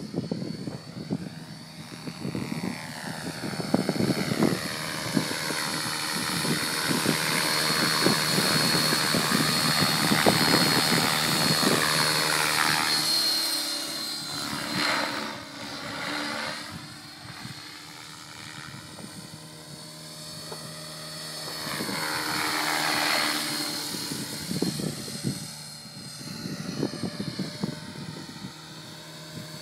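Align T-Rex 600 Pro radio-controlled helicopter flying: a continuous rotor and drive whine whose tone sweeps up and down as it manoeuvres, swelling loudest about a third of the way in and again about three-quarters of the way through, fading in between.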